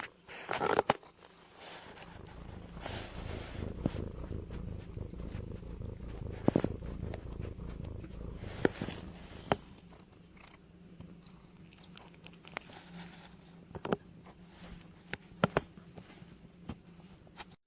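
A domestic cat purring, a steady low rumble, with a short louder noise right at the start and several sharp clicks through it.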